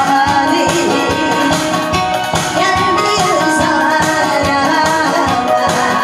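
A woman singing into a microphone over amplified backing music with a steady beat.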